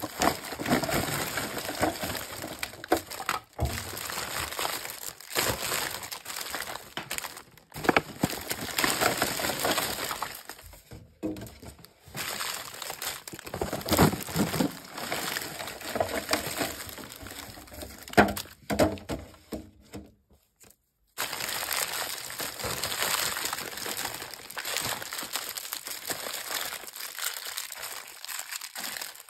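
Plastic and foil candy wrappers crinkling and rustling as handfuls of wrapped sweets are scooped up, shuffled and dropped onto a heap, with sharp crackles throughout; it stops for a moment about two-thirds of the way through.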